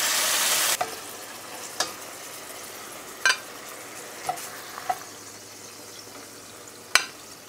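Chicken sizzling as it browns in a cast-iron skillet. The sizzle is loud at first, drops suddenly to a quieter sizzle less than a second in, and is broken by several sharp clicks of a utensil against the pan, the loudest near the end.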